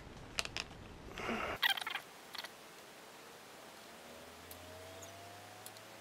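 A few light clicks and knocks in the first two seconds or so, from a DSLR camera being handled on a tripod's pan head. After that, quiet room tone with a faint steady hum.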